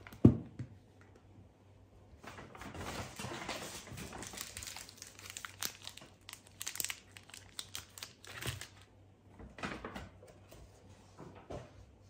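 A jar set down on a table with a sharp knock, then the plastic wrappers of snack bars crinkling for several seconds as they are handled, with a few shorter rustles near the end.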